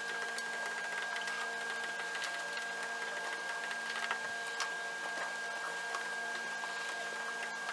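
Steady hum and hiss with a few faint, light taps and scratches of chalk writing on a blackboard.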